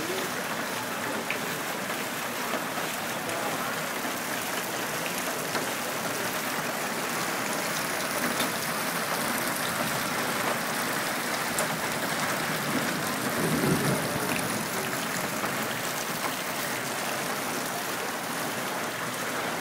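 Heavy cloudburst rain pouring onto a flooded street: a steady, dense hiss of drops striking standing water. A brief louder swell comes about two-thirds of the way through.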